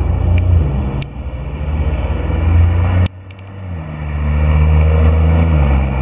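Street traffic: car engines running close by, a steady low rumble. About three seconds in it drops away suddenly, then builds back up.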